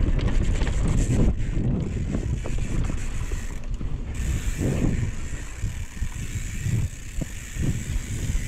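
Mountain bike descending a dirt trail: wind buffeting the action-camera microphone, tyres rolling over dirt, and the bike's drivetrain and rear hub ticking and rattling as it coasts. The clatter is busiest in the first second or so and eases from about halfway through.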